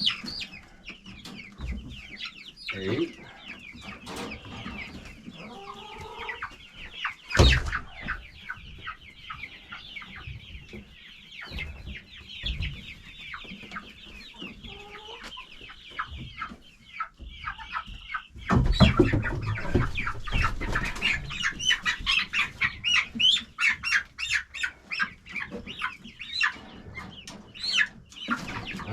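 Chickens clucking, with one loud thump about seven seconds in. Near the end the clucking grows louder and busier.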